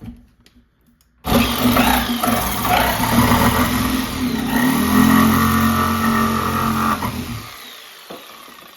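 Jigsaw switched on about a second in and cutting a notch into the edge of a wooden door, running steadily with some wavering in pitch, then switched off and winding down near the end.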